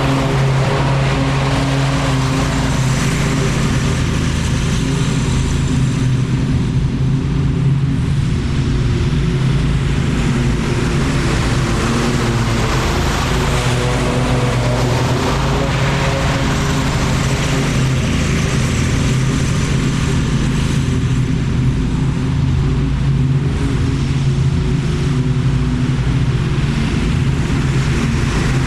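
Lawn mower engine running steadily at working speed.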